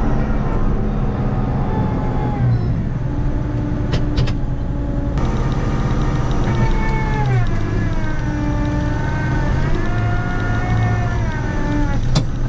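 Tractor engine running under load while plowing snow, its pitch dropping and rising again a few times as the revs change.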